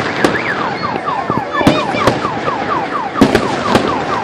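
Fireworks going off with sharp cracks, over a car alarm's electronic siren repeating a falling wail about four times a second, set off by the blasts.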